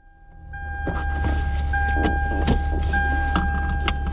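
Low, steady rumble inside a car's cabin, with a steady high tone that drops out briefly twice and scattered clicks and knocks of someone moving about in the seat.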